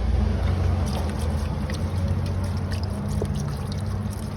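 Car engine running steadily, on an attempt when the intermittently failing fuel pump is delivering fuel.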